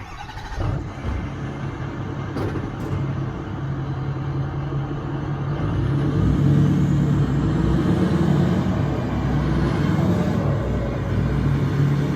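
Engine running with a steady low hum, growing louder over the first six seconds and then holding steady.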